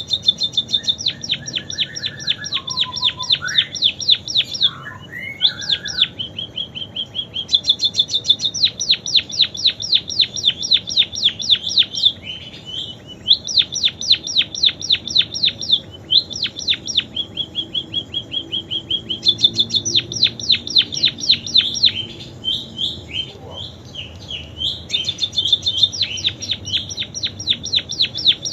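A pipit singing canary-style song it has learned: long, fast trills of repeated high notes broken by short pauses, with a few lower whistled glides in the first few seconds.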